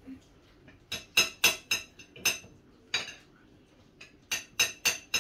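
Metal cutlery clinking against a plate in quick runs of sharp, ringing taps, about three a second, with a pause in the middle.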